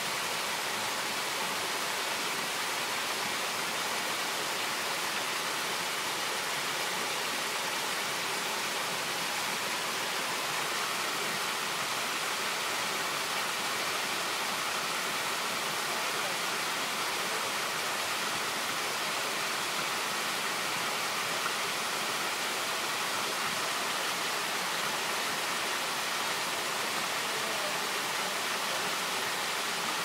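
Bigar waterfall: many thin streams of water falling from a mossy rock overhang and splashing into a pool, a steady rush that is bright and hissing with little low rumble.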